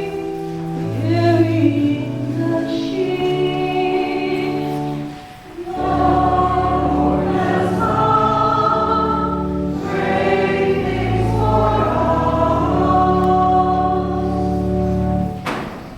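Church choir singing during Mass, sustained chords over steady low notes, with a short break about five seconds in; the singing ends near the end.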